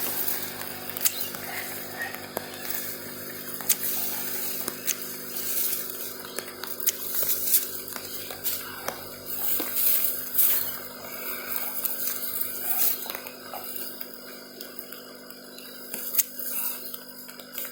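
Plastic bag over the phone rustling in irregular bursts, with scattered sharp ticks of drizzle drops landing on it.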